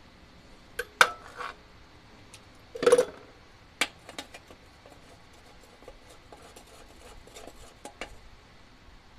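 Metal tools clinking: a sharp clank about a second in, then a socket ratchet set down on the steel air cleaner lid with a ringing clank just before three seconds, followed by lighter metallic clicks of hand work on the engine.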